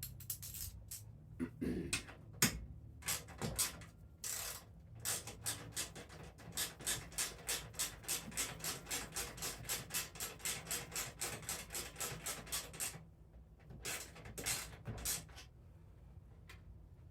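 Fast, even back-and-forth scraping or rubbing strokes, about five a second, with a few scattered scrapes and knocks before and after the run.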